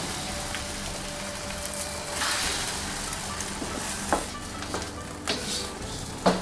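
Egg frying in hot oil in a wok, sizzling steadily as a wooden spatula pushes and turns it, with a few short scrapes of the spatula against the pan in the second half.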